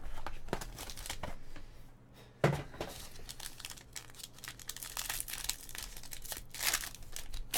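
Crinkling and rustling of trading-card packaging and plastic card holders being handled, with scattered small clicks and a sharp snap about two and a half seconds in.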